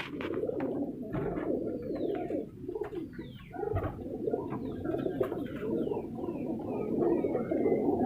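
Many Sherazi pigeons cooing together in a breeding loft, an overlapping steady coo, with a few higher falling chirps over it.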